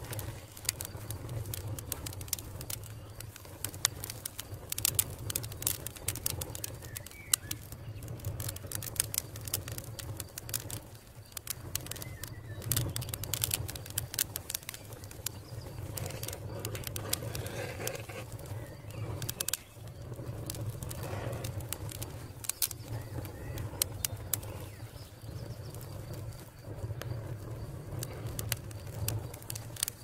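Fire crackling: many irregular sharp pops and snaps over a low steady rumble.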